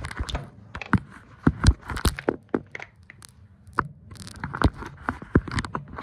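Handling noise: many irregular sharp clicks and knocks mixed with rustling and scraping.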